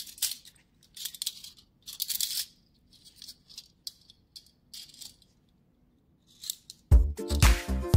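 Metal toy handcuffs clinking and rattling as they are handled, in short scattered clicks. Dance music with a steady beat starts again about seven seconds in.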